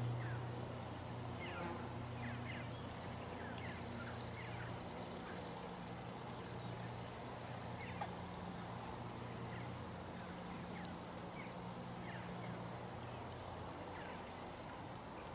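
Birds chirping in short, scattered calls over a steady low drone, with one small click about halfway through.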